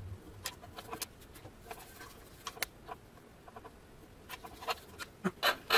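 The tip of a small screwdriver scratching and scraping on a printed circuit board, heard as irregular short scratchy clicks. The clicks grow louder and closer together near the end.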